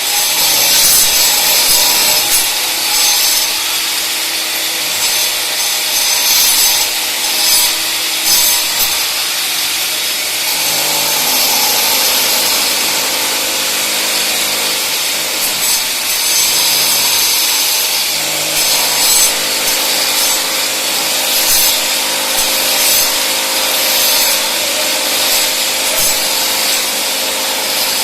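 Continuous loud sawing noise, strongest in the high range, with a faint hum underneath that shifts in pitch about ten seconds in and again around eighteen seconds in.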